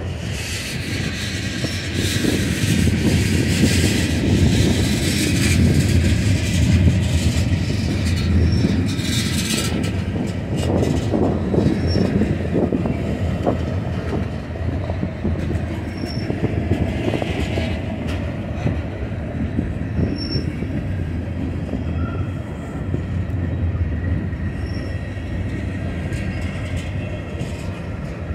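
Freight train cars rolling past at track side: a continuous rumble of wheels on rail with many clicks over the joints, strongest in the first half. Short, faint high-pitched wheel squeals come every few seconds.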